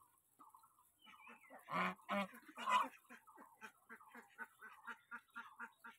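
Domestic geese calling while they feed from a bowl of grain. About two seconds in come three loud honks close together, then a quick, even run of short, softer calls, about four or five a second.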